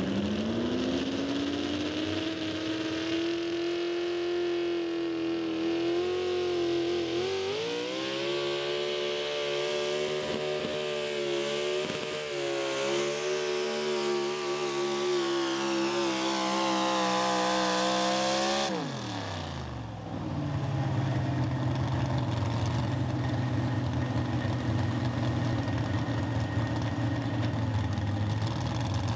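Pro stock 4x4 pulling truck's engine at full throttle, dragging a weight-transfer sled. Its pitch climbs as it picks up revs, steps up again about seven seconds in and holds high. About nineteen seconds in the throttle is cut and the revs fall away quickly, leaving an engine running low and steady.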